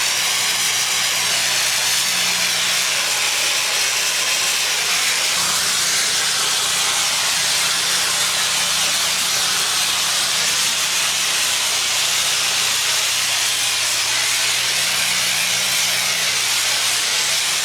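Pressure washer running, its high-pressure water spray a steady loud hiss over the low hum of the machine's engine.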